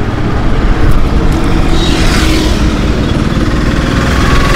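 Loud, steady motor-vehicle noise on a road, with a vehicle passing about two seconds in.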